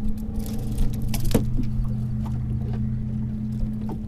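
Clicks and knocks of a yellow jack being unhooked with pliers in a landing net, with one sharper knock about a second in, over a steady low hum.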